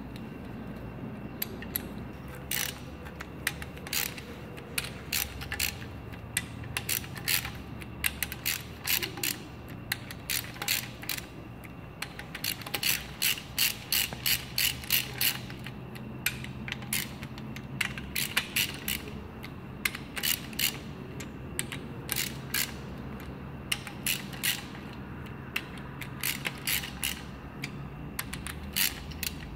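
Hand ratchet wrench clicking as nuts on a Thermo King engine's cylinder head are turned, the pawl ticking a few times a second in runs with short pauses between.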